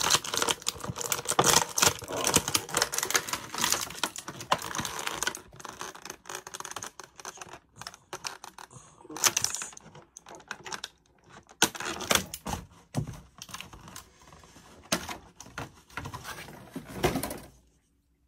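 An action figure being worked out of its packaging: plastic crinkling, crackling and clicking in a dense run, thinning to scattered bursts after about five seconds and stopping just before the end.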